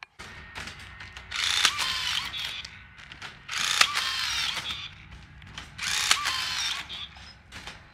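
Cordless rebar tying tool tying the wire mesh: three tying cycles about two seconds apart, each about a second of motor and gear noise as the tool feeds, wraps and twists tie wire around a crossing.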